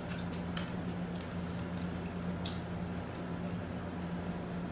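A person eating French fries: a few soft clicks and rustles from chewing and from a paper fries holder, over a steady low hum.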